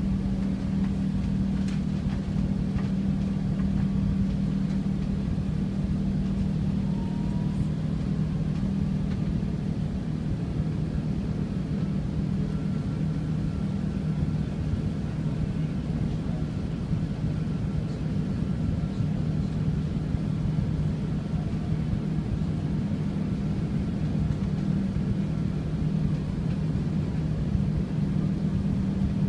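Airbus A380 cabin noise in the climb just after takeoff: a steady low hum and rumble of the engines and airflow, heard inside the passenger cabin, holding an even level throughout.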